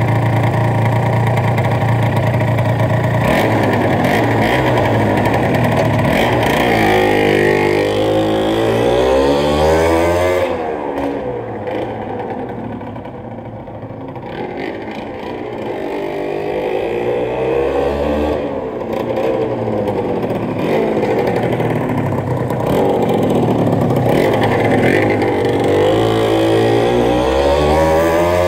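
Yamaha TZR 125's two-stroke single-cylinder engine idling, then revving and pulling away through the gears with its pitch repeatedly rising and falling. It fades as the bike gets further off around the middle, then grows louder again as it rides back with more rises and falls in pitch.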